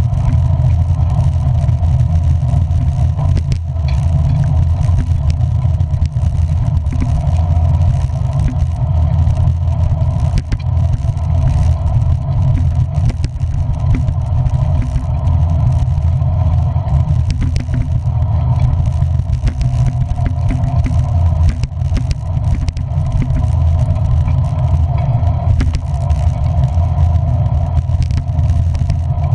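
A motor vehicle travelling at a steady pace: a loud, steady low drone of engine and road noise, with scattered faint ticks, while riding in the rain.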